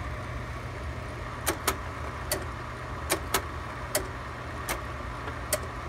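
Kodak 5200 Carousel slide projector's cooling fan running with a steady hum, while about eight sharp clicks come every second or so, some in quick pairs, as the projector is worked from its wired remote.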